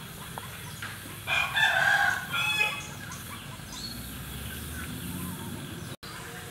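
A rooster crows once, about a second in, one loud call lasting about a second and a half.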